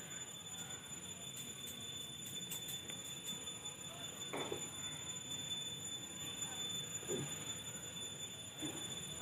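Quiet background with a steady thin high-pitched whine, and three brief, soft falling sounds at about four, seven and nine seconds in.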